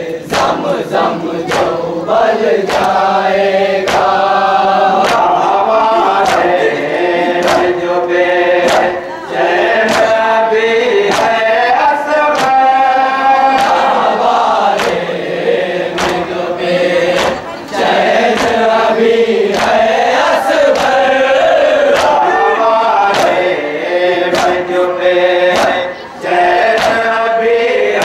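A group of men chanting a Shia nauha (lament) in unison. A steady rhythm of sharp beats runs under the chant: mourners' hands striking their chests in matam, keeping time with the recitation.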